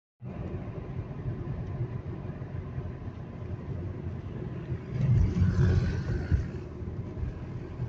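Car driving, heard from inside the cabin: a steady low rumble of engine and road noise that grows louder about five seconds in.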